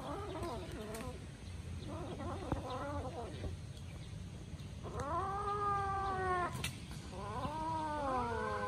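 Kittens meowing while they feed on raw meat: short calls at first, then two long drawn-out meows about five and seven seconds in, over a low background hum.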